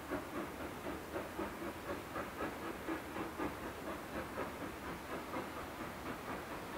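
Steam locomotive working steadily, its exhaust beating about four to five times a second.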